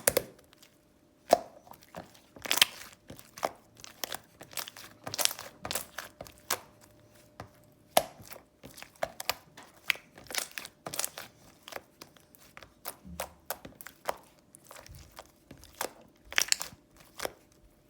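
Irregular sharp clicks, taps and crinkles, a few a second, of something being handled close to the microphone.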